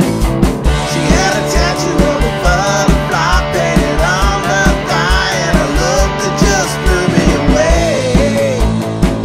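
Rock song played by a band on guitars, bass and drums, with a steady kick-drum beat; a lead vocal sings over it from about a second in until near the end.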